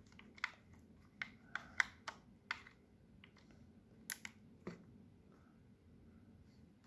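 Faint plastic clicks and taps from a PS3 DualShock 3 controller being handled and its buttons pressed: a quick run of about seven clicks, then three more a little past halfway.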